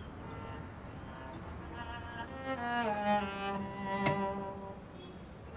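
Slow background music on bowed strings, with low cello-like notes held long and sliding down in pitch about halfway through. A short click sounds about four seconds in.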